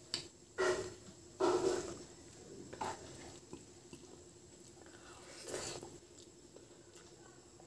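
Eating-show mouth sounds: loud gulps of water swallowed from a glass in the first two seconds. Then fainter wet sounds as rice is mixed by hand and a mouthful is taken about five and a half seconds in.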